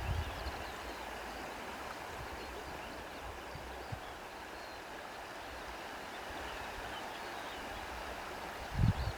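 Steady rush of a flowing stream, with a few faint high chirps above it and an uneven low rumble underneath. A brief low thump comes near the end.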